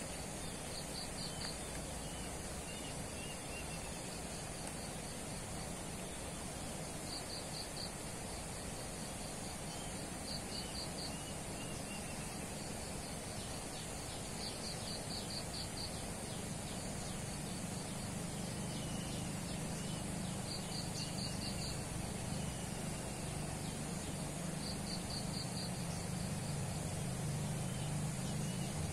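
Rural outdoor ambience: an insect chirps in short trains of rapid, evenly spaced pulses every few seconds over a steady hiss. Faint bird chirps come through, and a low hum grows louder toward the end.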